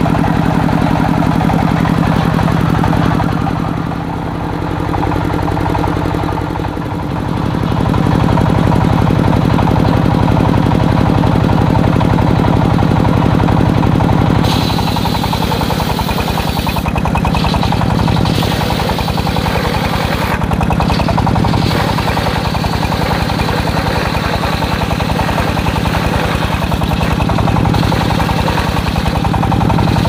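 Diesel-engine-driven circular sawmill running steadily, its large blade spinning and cutting lengthwise through a log. The engine note dips briefly a few seconds in, and from about halfway a brighter sawing hiss of the blade in the wood joins it.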